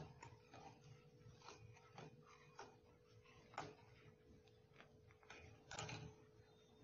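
Faint, irregular clinks of a steel spoon against the side of a steel pan as milk is stirred, over a faint steady hum.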